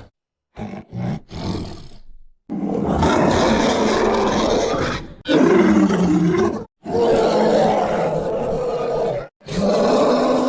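Cave bear roars from an animated series' sound design: three short grunts, then a series of long roars with brief silences between them, the second one sliding down in pitch, and a fourth starting near the end.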